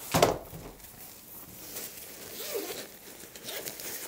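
A bed tent's carry bag handled with a sharp, loud bump just after the start, then its zipper being pulled open in scratchy strokes.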